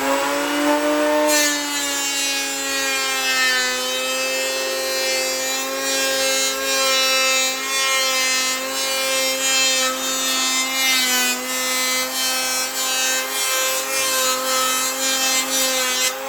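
Handheld electric woodworking tool running at full speed, taking a levelling pass over wood, a steady motor whine with cutting noise over it. It is switched off and winds down at the very end.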